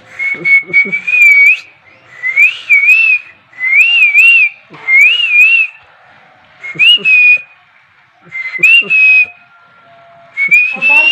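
A person whistling a short wavering phrase over and over, about seven times with brief pauses between, calling a puppy, with soft rustling of handling in between.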